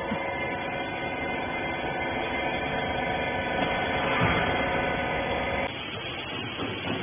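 Horizontal bagging baler's machinery running with a steady electric hum. The hum cuts off abruptly about five and a half seconds in, leaving a rougher mechanical noise.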